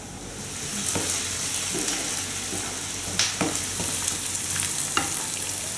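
Sliced onions frying in a pan, sizzling steadily and growing louder about a second in, with a utensil stirring them and clicking against the pan a few times.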